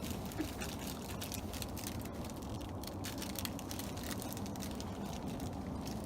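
Steady low rumbling outdoor background noise, with faint scattered ticks and rustles throughout.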